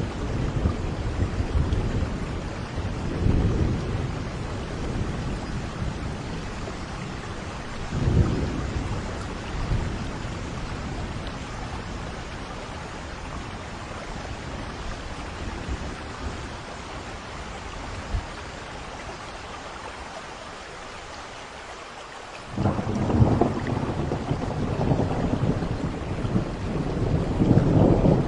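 Steady rain with rolling thunder: low rumbles swell about three and eight seconds in, then after a quieter lull a loud thunderclap breaks in suddenly about 22 seconds in and keeps rumbling, growing toward the end.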